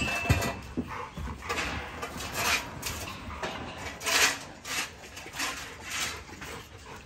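American bully dogs moving about in wire kennel runs, making a series of short, irregular scuffling noises.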